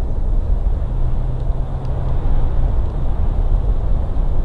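Steady low rumble of wind buffeting an outdoor nest-cam microphone, with a few faint ticks.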